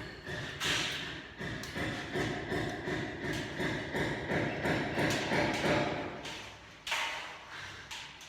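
A rapid run of knocks with a steady high whine beneath them, running about six seconds and then stopping, with a few single louder knocks around it: a power tool working on ceiling framing.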